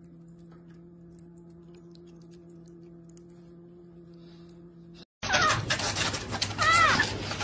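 Pet water fountain's pump humming steadily and faintly, with a few small drips and laps. After a sudden cut comes louder rustling, and a single high-pitched mew from a kitten.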